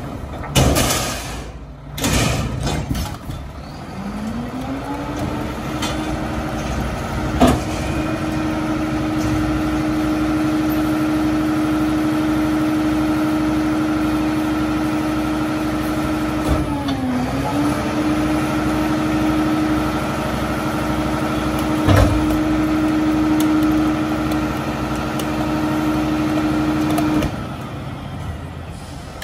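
Mack LR rear-loader garbage truck's engine and hydraulics speeding up about four seconds in, then running at a steady raised pitch, with a brief dip partway through and two sharp knocks. The pitch drops back to a lower idle near the end.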